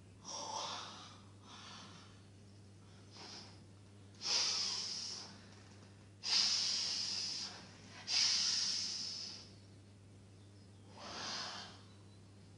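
A person's loud, forced breathing: about seven hissing breaths in a row, each starting sharply and tailing off, the longest lasting over a second, over a steady low hum.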